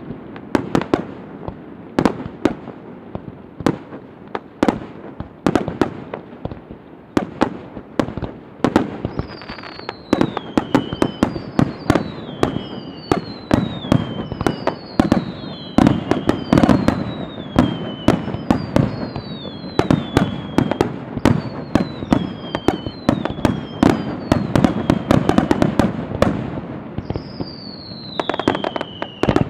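Fireworks display: a dense, irregular run of booms and cracks from aerial shells bursting, over a continuous low rumble. From about a third of the way in, high whistles sound about once a second, each falling in pitch, with a loud one near the end.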